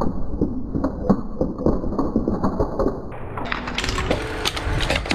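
Slowed-down crunching and cracking of a plastic Singer sewing machine under a truck tyre: deep, drawn-out knocks and cracks over a low rumble. About three seconds in, the sound jumps back to normal speed, with sharper cracks of plastic over the truck's running engine.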